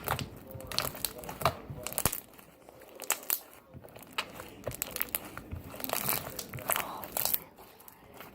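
Slime being squished and stretched by hand, giving off irregular sharp pops and crackles.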